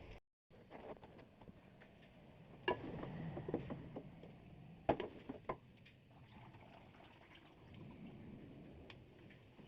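A few sharp clicks and knocks over low background noise, the loudest about three seconds in and again about five seconds in.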